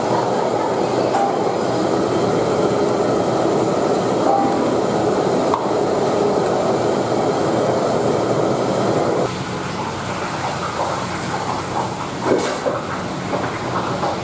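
Steady roar of a restaurant gas wok burner under a wok of simmering curry. The roar drops suddenly about nine seconds in, and a few light knocks follow near the end.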